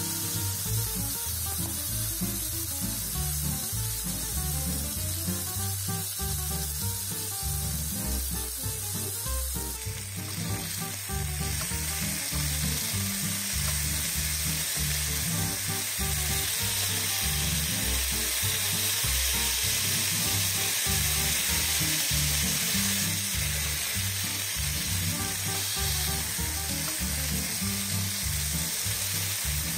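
Chicken breasts frying in oil on a grill pan, a steady sizzle that grows louder about ten seconds in. Background music with a low bass line plays under it.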